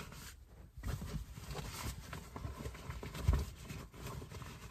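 Rustling and irregular knocking of rooftop tent fabric as the tent's flaps are pulled shut, with one heavy thump about three seconds in.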